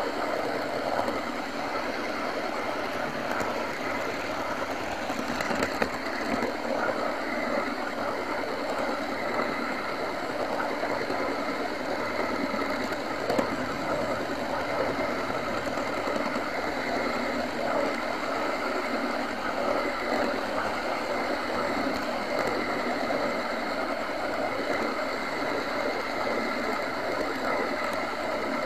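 OO gauge model train running on a garden railway, heard close up from on board: a steady mechanical whirring and rattling of motor, gears and wheels on the track, with fine rapid clicking and a few louder clicks.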